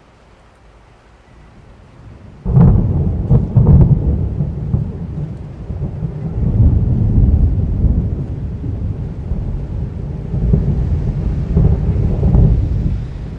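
Thunderstorm: after a few seconds of light rain, a sudden loud thunderclap cracks with several sharp strikes, then rolls on as a long low rumble that swells twice more before fading.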